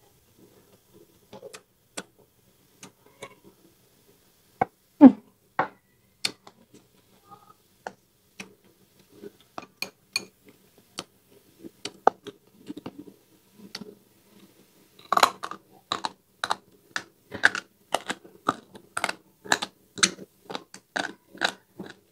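Close-up eating sounds: chewing and lip smacking of caramelized pork ribs and rice, with light chopstick clicks against the bowl. The chewing turns into a steady run of wet mouth clicks, about two to three a second, over the last seven seconds.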